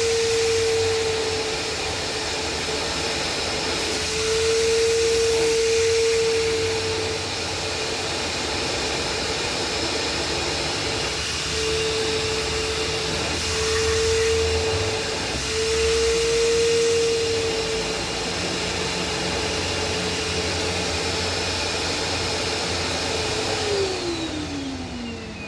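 A rug-washing machine's electric motor running with a steady whine that comes and goes over the noise. About a second before the end the whine glides down in pitch and the noise falls as the motor winds down.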